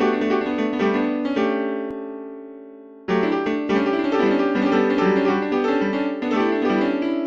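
Solo piano music: a run of notes ends on a held chord that dies away, then the playing cuts back in suddenly at full level about three seconds in and carries on.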